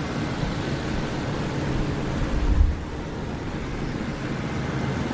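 Steady background hiss and low rumble, with a brief low thump about two and a half seconds in.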